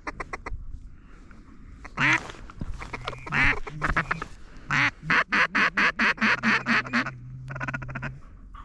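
Mallard-style quacking: a few loud, drawn-out quacks, then a fast, even run of about a dozen quacks in roughly two seconds.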